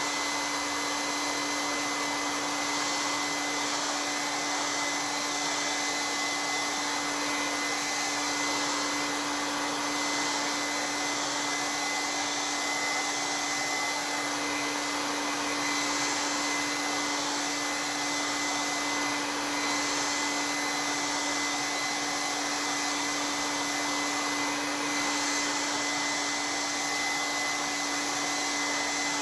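Handheld hair dryer running steadily on one setting, drying wet acrylic paint: a rush of air with a steady low motor hum and a thin high whine.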